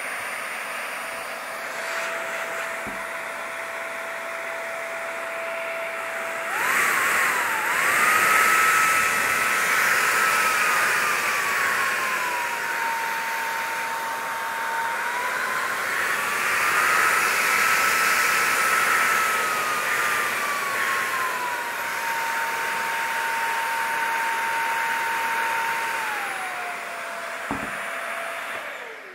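Wagner FC 4000 18V cordless XVLP paint sprayer's turbine motor idling with a steady whine. About six seconds in, with the trigger pulled and no paint loaded, it speeds up to a higher whine with a loud rush of air. The pitch drops and climbs again twice, falls back to idle near the end, and stops.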